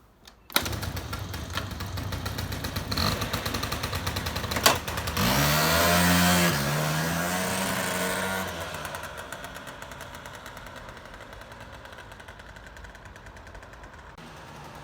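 Honda Bali scooter engine comes on suddenly about half a second in and runs. Around five seconds in it revs up with a rising pitch. After about eight seconds it grows fainter as the scooter moves off.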